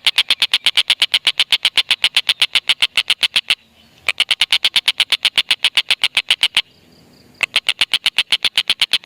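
Tengkek buto kingfisher's long cackling call: a loud, rapid run of sharp 'kek' notes, about nine a second. It comes in three long runs, with short pauses a little after three and a half seconds in and around seven seconds in.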